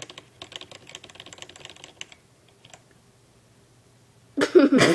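Rapid light clicking, like typing on a computer keyboard, for about two seconds, then it stops. Near the end a loud voice breaks in.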